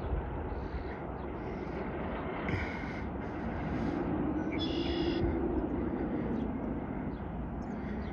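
Distant Wildcat's Revenge roller coaster train running through its layout on an empty test run: a steady rumble that swells to a hum for a few seconds past the middle. Two short high chirps sound over it.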